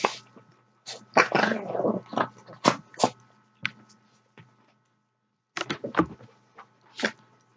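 Dogs playing, making a run of short, sharp, noisy sounds. A brief lull comes a little past the middle, then a few more near the end.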